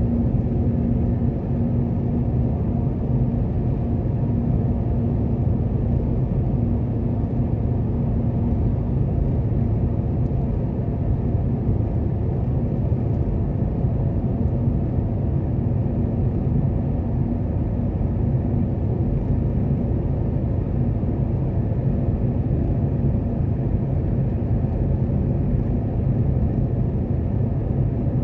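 Steady low rumble of tyre, road and engine noise heard inside the cabin of a Volvo V60 cruising at a constant speed, with a faint steady hum that fades out about nine seconds in.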